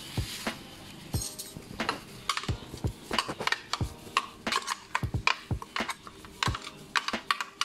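Irregular clicks and knocks of a plastic blender jar being tapped and shaken to empty thick blended spice paste into a plastic basin of raw duck.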